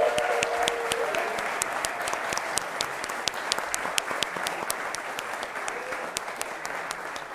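Audience applauding, with a voice calling out near the start, the clapping slowly dying down.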